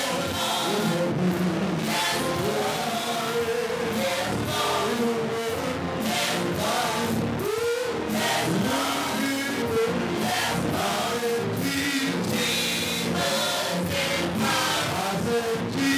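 Gospel choir singing together through handheld microphones.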